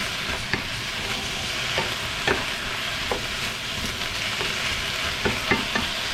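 Beef and cauliflower stir-frying, sizzling steadily in a hot pan as it is stirred, with the spatula clacking against the pan several times.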